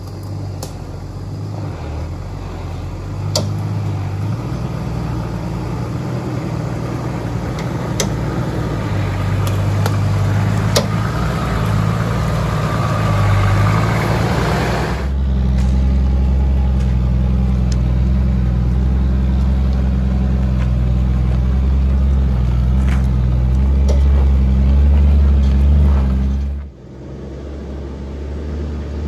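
Toyota LandCruiser 80 Series four-wheel drive crawling up a rutted dirt track, its engine growing louder as it approaches and passes close, with a few sharp clicks along the way. About halfway through, the sound switches to a steadier, deeper engine drone that drops away briefly near the end.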